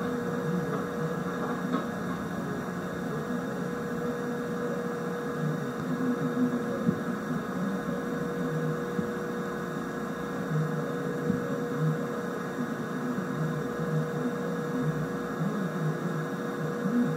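Steady electrical hum with one constant mid-pitched tone, over a low, uneven rumble that swells and fades.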